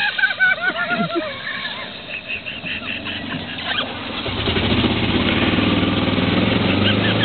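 A high, wavering whoop of a person yelling in the first second, then a golf cart's motor running, growing louder from about four seconds in as the cart drives through the wet course.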